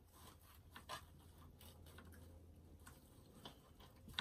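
Near silence: a few faint clicks and light rustles of hands arranging artificial flower stems, over a low steady hum.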